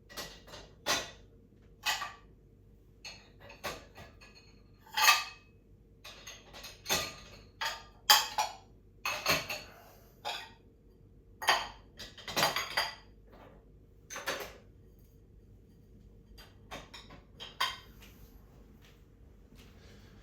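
Dishes and cutlery being handled while washing up: an irregular string of sharp clinks and knocks as crockery and utensils are picked up and set down.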